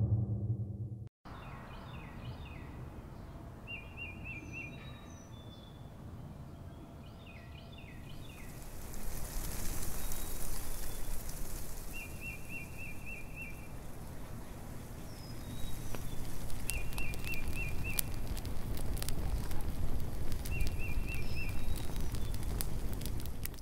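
Woodland ambience: birds calling over a steady background rush, with a short rapid trill repeated several times and scattered higher chirps. A hissing rush swells up around nine seconds, and from about sixteen seconds on there are many small crackling clicks.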